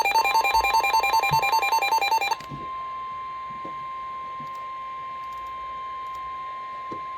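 A rapidly pulsing two-note electronic alert beep cuts off abruptly about two and a half seconds in. A steady single-pitch tone, the roughly 1050 Hz NOAA Weather Radio warning alert tone, starts just after the beeping begins and then continues alone over faint radio hiss, announcing the next severe thunderstorm warning.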